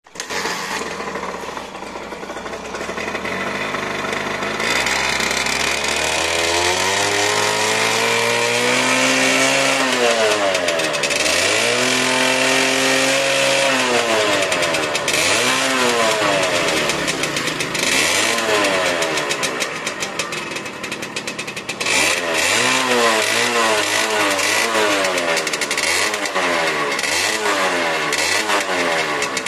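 Suzuki Satria 120 ("Xìpo") two-stroke single-cylinder motorcycle engine running and being revved again and again, its pitch climbing and falling with each blip of the throttle. The revs come shorter and quicker over the last several seconds.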